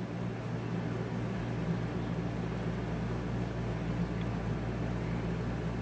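Room air conditioner running: a steady, noisy low hum with an even hiss.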